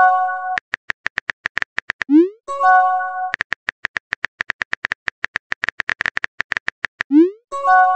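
Chat-app sound effects for messages appearing. A chime at the start is followed by rapid clicks of simulated keyboard typing, then a short rising whoosh and a bright chime about two and a half seconds in. A longer run of typing clicks follows, with another whoosh and chime near the end.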